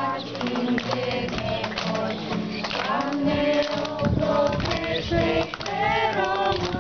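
A group of children's voices singing a song together in unison, accompanied by strummed guitars.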